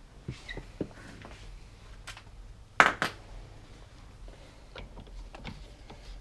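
Light metallic clicks and knocks of hand work on a steering wheel's center bolt as it is threaded in by hand, with two sharp clicks close together about three seconds in.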